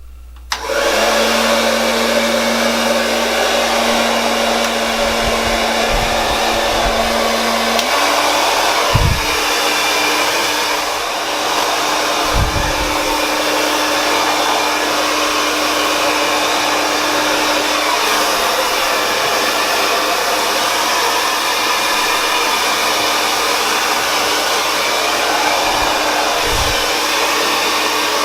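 Berta 1875-watt hair dryer switched on about half a second in and blowing steadily while drying wet hair. Its motor hum steps up in pitch about eight seconds in, and there are a few brief low bumps.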